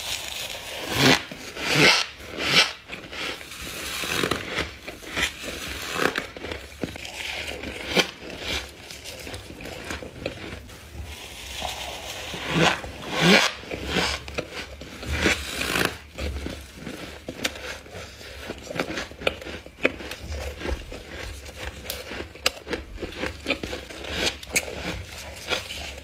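Close-up crunching of a person biting and chewing sticky, snow-like freezer frost. The many crisp crunches come irregularly, with louder runs of bites a few times.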